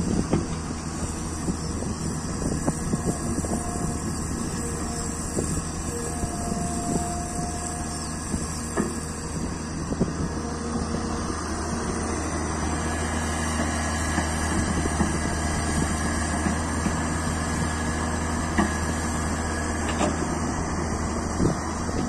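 L&T-Komatsu PC200 tracked excavator's diesel engine running steadily under digging load, with scattered knocks and clatter through the first half as the bucket works the soil. About halfway through the engine grows a little louder and a faint high whine joins as the full bucket is lifted and swung.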